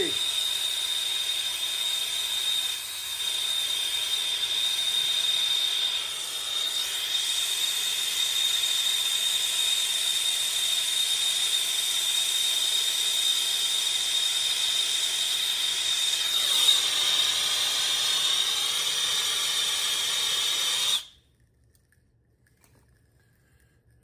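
Hose-fed soldering torch burning with a steady hiss and a high whistling tone while heating a half-inch copper joint on a ball valve for sweating. The torch sound stops suddenly about 21 seconds in, leaving near silence.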